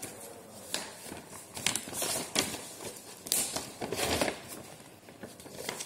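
A folded sheet of paper being unfolded by hand, rustling and crinkling in a string of uneven crackles.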